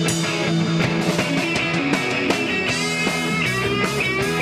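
Live rock band playing an instrumental passage: electric guitars, bass and drums, with a lead line of held notes bent upward coming in a little past halfway.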